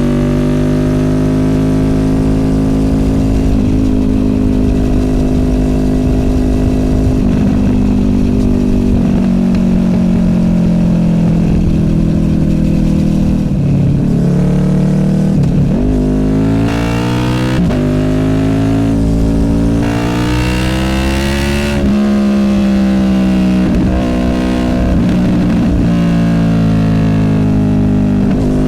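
Honda VFR800F's V4 VTEC engine through an SC Project Conic exhaust, heard from the moving bike. The engine note holds fairly steady at first, then dips and recovers several times over a few seconds. Past the middle it climbs in a long rising pull that falls sharply at a gear change, before running steadier again.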